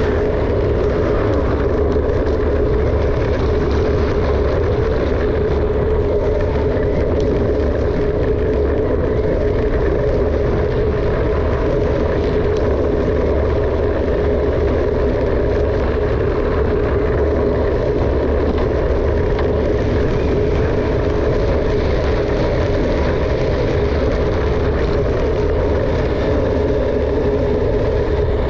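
Steady wind rush on the microphone and tyre rolling noise from a mountain bike descending at speed, with a constant hum through it.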